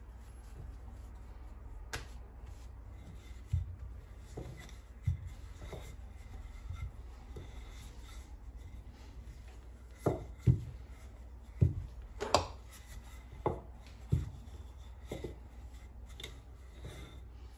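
Hands working butter-bun dough on a kitchen work surface: rubbing, with soft irregular thuds that bunch up about ten seconds in.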